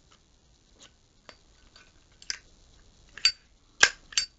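Metal clicks and clinks from a Zippo lighter's insert being fitted back into its case: a few faint ticks, then sharper clacks in the last second and a half.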